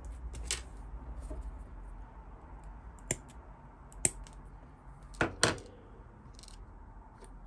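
Small plastic model-kit parts being worked by hand: four sharp clicks like cutters snipping plastic, the last two close together, with faint scraping and handling between them.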